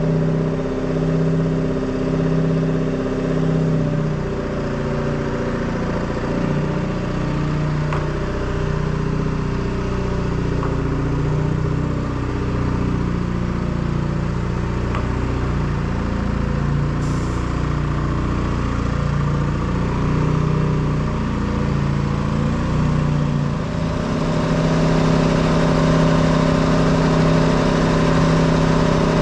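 Detroit Diesel 2-53 two-cylinder, two-stroke diesel engine running steadily. Near the end its note shifts and it runs a little louder.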